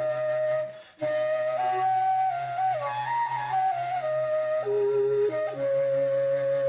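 Kazakh sybyzgy, an end-blown flute, playing a slow melody of held notes that step up and down, with a short break for breath about a second in. A steady low drone sounds underneath.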